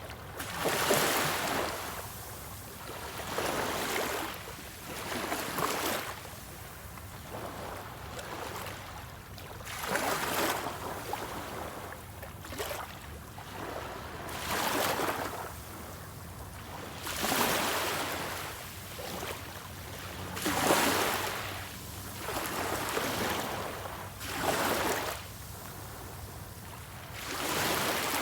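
Small sea waves breaking and washing on the shore, a surge of surf every two to three seconds that swells and fades.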